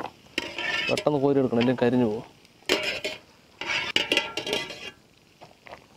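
A metal strainer scraping and clinking against an aluminium pot as fried cashews are scooped out of hot ghee and tipped onto a plastic plate, in two clattering bursts with a light sizzle. Before them, a low, drawn-out vocal sound lasts about two seconds.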